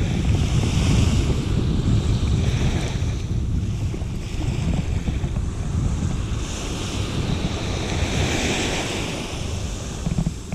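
Waves washing onto a beach, swelling twice, under a heavy rumble of wind buffeting the microphone.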